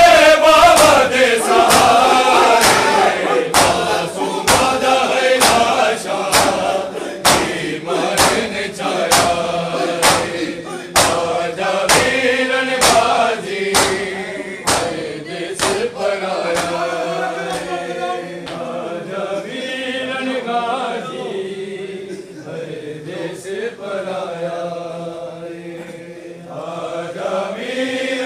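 A crowd of men chanting a noha (Shia mourning lament) together. Sharp, rhythmic slaps of matam chest-beating come about once a second and stop about halfway through, while the chanting goes on.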